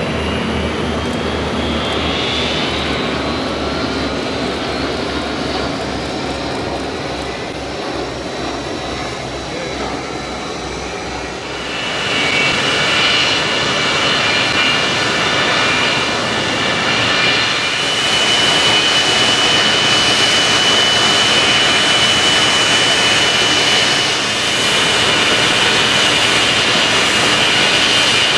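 Aircraft engines of a display aircraft in flight: for the first twelve seconds a rushing engine sound with tones that glide in pitch as it passes, then about twelve seconds in, a sudden change to a louder, steady high whine over the rush.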